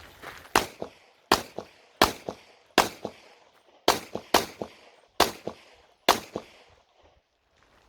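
Bul SAS II UR Open-division pistol firing eight fast shots during an IPSC stage run, spaced about half a second to a second apart. Each shot is followed by a fainter crack, and the string ends about six seconds in.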